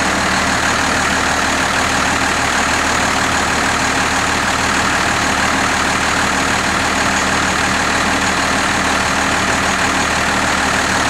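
1993 Dodge Ram 250's Cummins 5.9-litre 12-valve 6BT inline-six turbo diesel idling steadily after a cold start.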